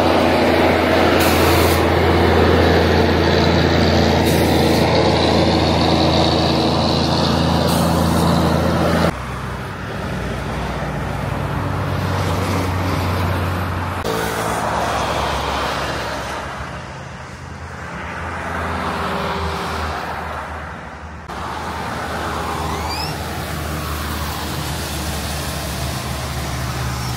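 A semi truck's diesel engine runs loud and steady, with a few short hisses, for about nine seconds; then cars and trucks pass on the road, their noise rising and fading.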